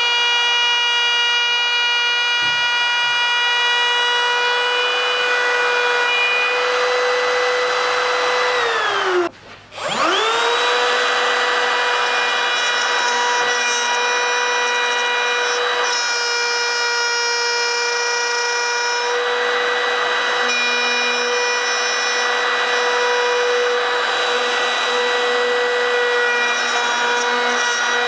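Makita 18V cordless router running at full speed and cutting a groove in a wood board, a steady high whine over the rasp of the bit in the wood. About nine seconds in the whine slides down in pitch and stops for a moment, then the motor spins back up to full speed.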